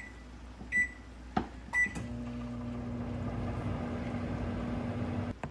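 Magic Chef microwave oven: three short keypad beeps about a second apart, then it starts running with a steady hum for about three seconds and stops suddenly with a click.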